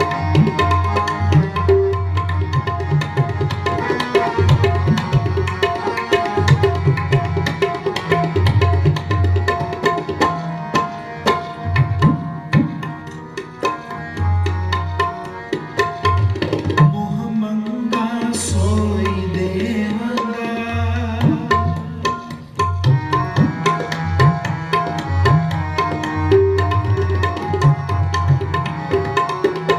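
Tabla playing a busy instrumental passage of dense strokes, with deep resonant bass-drum hits, over the steady held notes of a harmonium in Sikh kirtan. About halfway through the playing thins out briefly, then the bass drum's pitch slides up and down before the full rhythm returns.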